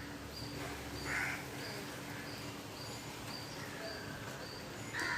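Faint bird calls in the background: a short call about a second in and another near the end, over a quiet high chirp repeating about twice a second.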